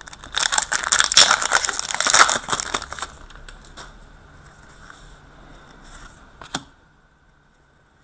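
Foil trading-card pack wrapper crinkling and tearing as a pack is handled and opened, a dense crackle for about three seconds. It dies down and is followed by a single sharp click about six and a half seconds in.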